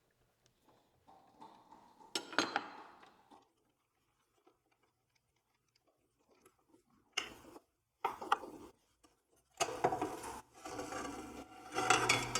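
Hand handling of a DeWalt 12-inch miter saw's blade and arbor parts as the blade is taken off: scattered metal clinks, knocks and rubbing. There is a burst about two seconds in, a quiet spell, sharp knocks around seven and eight seconds, and busier clattering and rubbing near the end.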